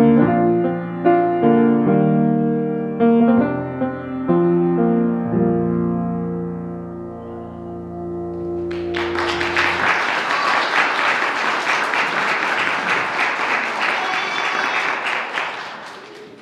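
Grand piano playing the closing chords of a hymn-style anthem, several struck chords that ring and fade over about nine seconds. Then a congregation applauding for about seven seconds, dying away near the end.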